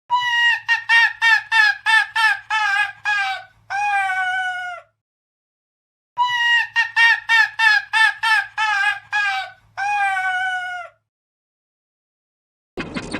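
A dog-laugh sound effect: a rapid run of short, high-pitched yelping notes, about three or four a second, ending in two longer falling notes, played twice in exactly the same form. Near the end a different, rougher sound begins.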